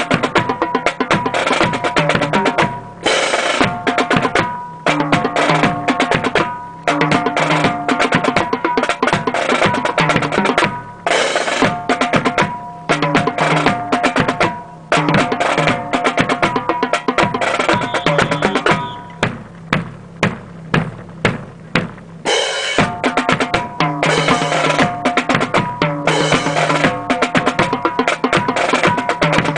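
Marching snare and bass drums playing a brisk drill cadence with drum rolls, broken by short pauses and a stretch of separate, spaced strokes past the middle.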